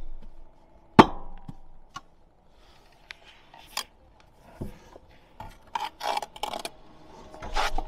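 Bricklayer's steel trowel on brick and mortar: one sharp tap about a second in, then a run of short scraping strokes near the end.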